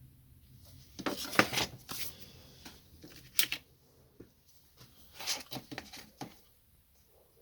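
Plastic parts of a laser printer toner cartridge being handled and worked apart by hand: clusters of clicks, scrapes and rattles, the loudest about a second in, another short burst at around three and a half seconds, and a third run around five to six seconds.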